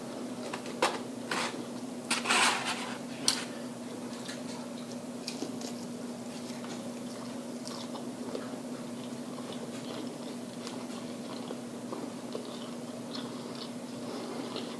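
Close-up biting and crunching into crisp fried food, then chewing. Several loud crunches come in the first few seconds, followed by softer, scattered chewing sounds over a steady low hum.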